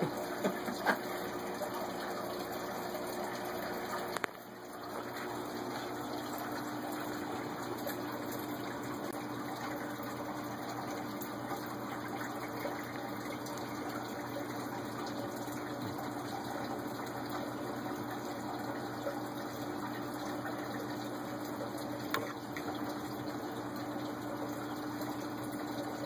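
Steady running-water noise with a low, even pump hum, dipping briefly about four seconds in.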